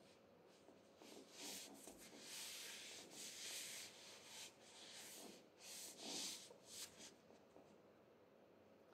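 Faint rustling of thick cotton tube socks rubbing against each other and scuffing on a wooden floor as the feet shift and turn. It comes as a run of short swishes, from about a second in to about seven seconds in.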